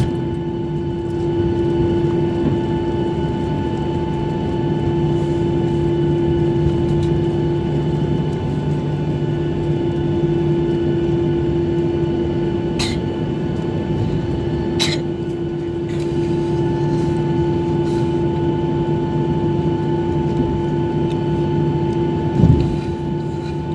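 Cabin noise of a Boeing 737-800 taxiing after landing, its CFM56-7B engines at idle giving a steady hum with constant whining tones over a rumble. Two short clicks come about halfway through, and there is a low thump near the end.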